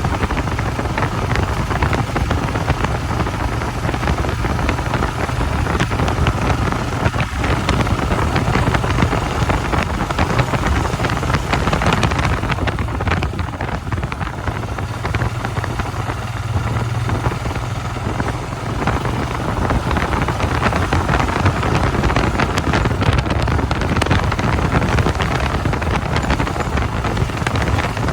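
Royal Enfield Himalayan motorcycle's engine running steadily under way, with heavy wind rushing over the microphone.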